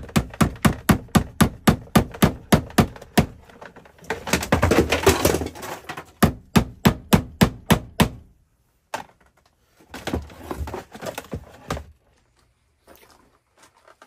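Hammer striking in quick runs of about three blows a second, driving a cable staple over fire alarm cable into a wooden stud. Two runs of sharp blows with a scraping, rustling stretch between them, then softer handling noises.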